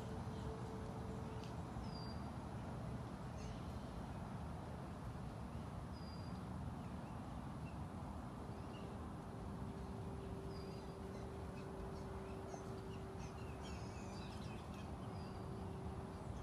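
Outdoor ambience: a steady low rumble, with wild birds giving short high chirps every few seconds and a quick run of chirps near the end. A steady hum comes in about halfway through.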